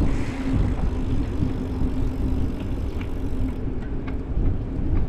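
Outdoor road noise: a low rumble with a passing motor vehicle's steady engine hum, which fades out about two and a half seconds in.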